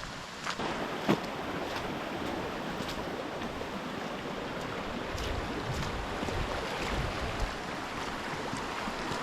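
Footsteps on a track under a steady rushing noise, with wind buffeting the microphone for a few seconds around the middle.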